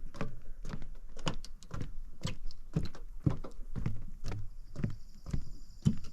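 Footsteps on a hard surface, about two thudding steps a second, walking at a steady pace.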